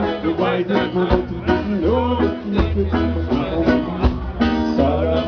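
Live rocksteady band playing: a steady bass line, guitar and drums under a sung lead vocal, heard from within the audience.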